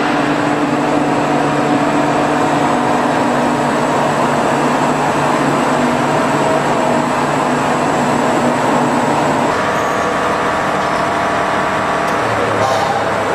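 Steady loud machinery running in a waste-processing plant: a continuous mechanical din with a low steady hum, its tone shifting about three-quarters of the way through.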